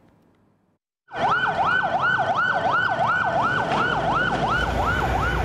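Ambulance siren in a fast yelp, rising and falling about three times a second over steady background noise. It starts suddenly about a second in, after a moment of near silence.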